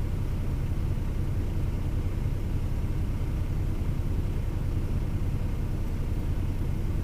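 DAF XF lorry's diesel engine idling, heard inside the cab as a steady low rumble.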